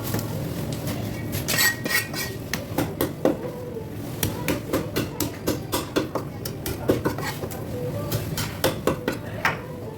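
A knife knocking on a cutting board as a fish is cut, with scattered knocks at first and then a quick run of sharp chops about two to three a second from about four seconds in.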